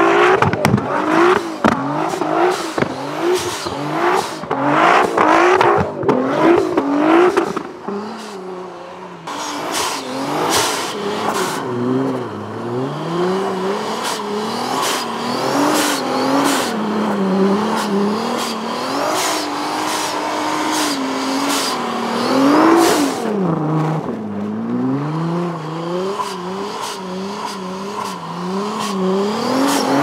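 Nissan GT-R R35's tuned twin-turbo V6 revving hard as the car slides round in donuts in deep snow. The revs rise and fall quickly at first, dip briefly, then swing up and down more slowly. Frequent sharp cracks are heard through the first half.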